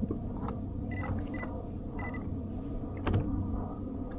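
Spinning rod and reel being worked while jigging from a kayak: short creaks, squeaks and clicks of the reel and rod, with a sharper knock about three seconds in, over a steady low hum.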